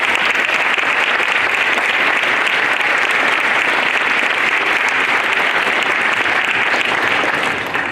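Audience of schoolchildren and adults applauding, a steady dense clapping that dies away near the end.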